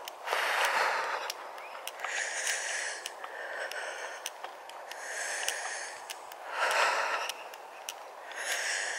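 A walker's heavy breathing while climbing a grassy hill, about six deep breaths in and out, with faint ticks between them.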